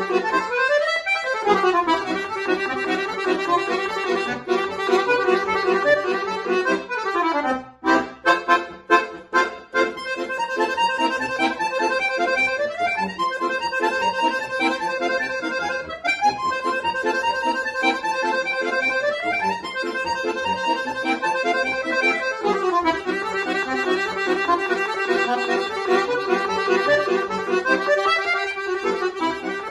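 Solo accordion music: held chords broken by sliding runs that sweep up and down in pitch, with a passage of short, clipped chords about eight seconds in.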